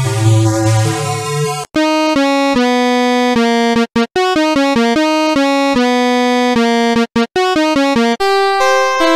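Synthesizer music. A short electronic passage with a heavy bass line cuts off abruptly, then a simple note-by-note melody plays on an electric-piano-like synth tone with a couple of brief breaks. Near the end it switches to a fuller layered keyboard part.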